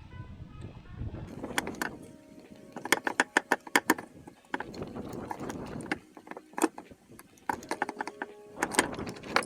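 Hand tools and small metal engine parts clinking and tapping as an antique engine's governor is taken apart: bursts of quick sharp clicks, some with a short metallic ring.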